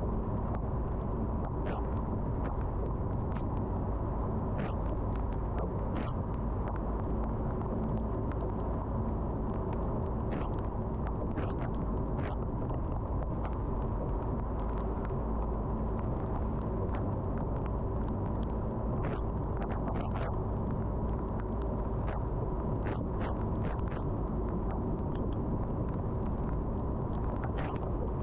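Car driving in the rain: a steady low rumble of road and engine, with scattered irregular ticks of raindrops striking the car.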